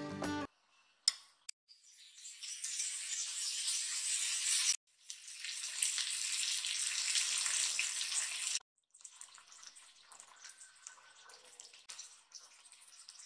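Milkfish (bangus) steaks sizzling in hot oil in a pan: two stretches of steady crackling sizzle, a few seconds each, that end in abrupt cuts, followed by a quieter, sparser crackle.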